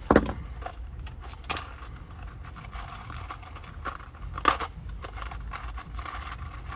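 Metal clanks, clinks and rattles from working with steel E-track and screws: one loud ringing clank at the start, then scattered light clicks and knocks with a couple of sharper hits.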